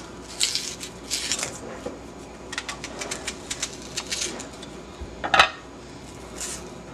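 A paring knife cutting and peeling an onion on a wooden cutting board: short crackling and scraping noises from the onion's skin and flesh, small scattered clicks, and one louder knock about five seconds in.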